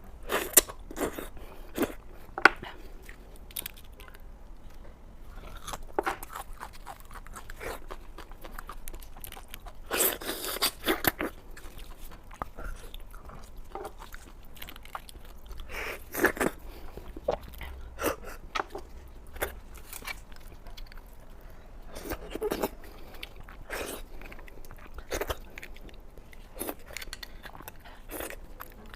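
A person eating beef bone marrow close to the microphone: irregular chewing and biting with short, sharp mouth clicks and crunches, a denser run of them about ten seconds in.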